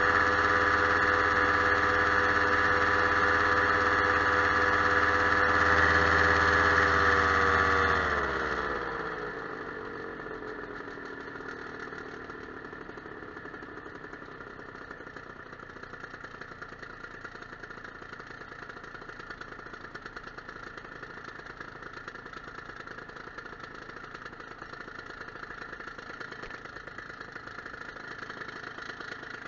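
Paramotor engine running at high throttle, then throttled back about eight seconds in, its pitch sliding down as it settles to a much quieter idle.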